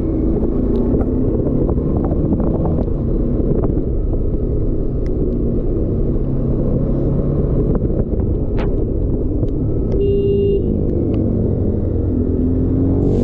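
Bajaj Dominar 400's single-cylinder engine running steadily as the motorcycle rides along. A horn beeps briefly about ten seconds in.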